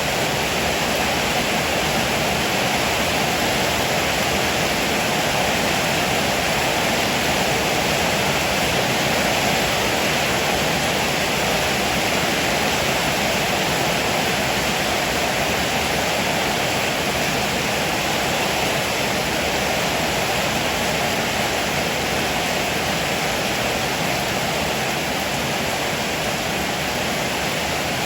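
Heavy rain falling steadily on a roof, a dense even hiss with no thunder or breaks.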